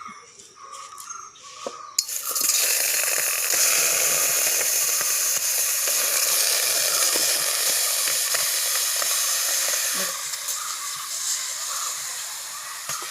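Food sizzling in a hot pan, starting suddenly about two seconds in, with small crackles through the hiss. It eases a little near the end.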